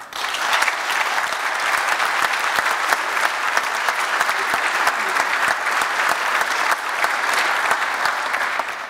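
Audience applauding: dense, steady clapping from many hands that starts at once and dies away near the end.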